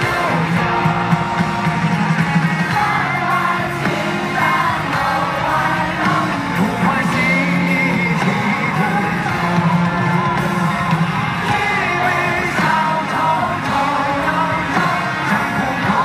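A male vocalist singing a song over loud, continuous backing music.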